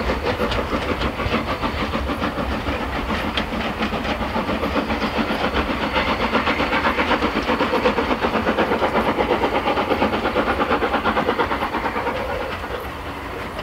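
Steam locomotive working away into the distance, its exhaust beating fast and evenly; the sound drops away about a second before the end.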